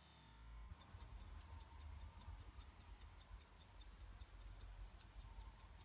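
Pocket watch movement ticking from its escapement, an even train of sharp ticks at about five a second that sets in under a second in, after a brief hiss.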